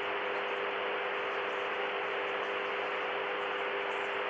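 Steady static hiss, like a degraded broadcast signal, with a constant low hum of a few held tones underneath.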